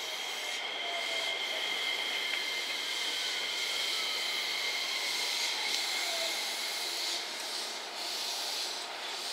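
JR West 227 series electric multiple unit rolling past at low speed: a steady electric whine from its traction equipment over the hiss of wheels on rail, with a tone that falls in pitch over a few seconds as the train slows.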